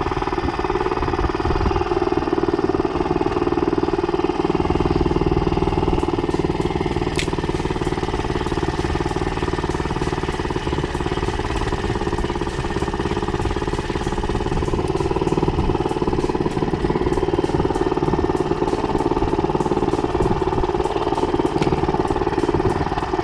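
Small 2-horsepower outboard motor running steadily.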